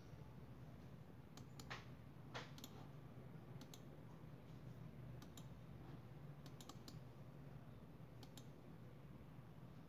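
Computer mouse buttons clicking, a dozen or so sharp clicks, many in quick pairs like double-clicks, with two louder clicks near the start, over a faint low hum.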